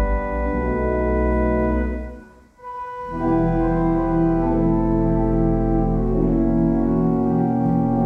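1934 Compton theatre pipe organ (four manuals, sixteen ranks) playing slow sustained chords over a deep pedal bass. The sound falls away almost to nothing for a moment about two and a half seconds in, then a fresh chord enters with a regularly pulsing low line beneath it.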